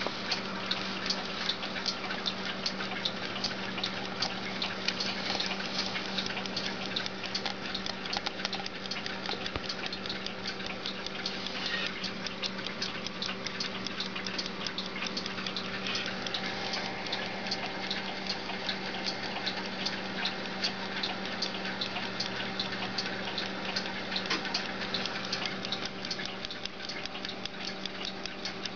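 Spring-driven Majak 8-day clock movement with a platform lever escapement, ticking rapidly and evenly.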